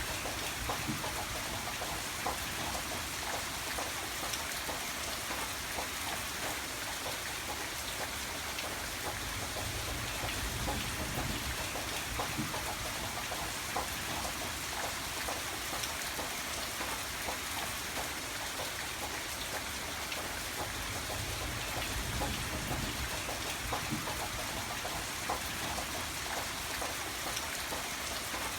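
Steady rain falling: a dense, even hiss with many separate drops ticking through it.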